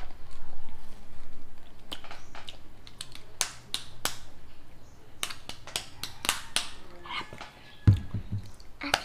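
Crisp crunching and mouth clicks of someone chewing a half-ripe green mango, a run of sharp short crunches, with a dull thump near the end.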